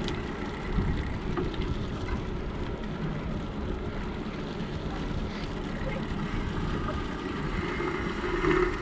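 Wind buffeting an action camera's microphone on a moving bicycle, with a steady low rumble of tyre and road noise.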